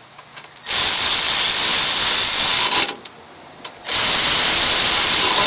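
Two long blasts of pressurized spray hissing, each about two seconds, with a short gap between them; each starts and stops abruptly.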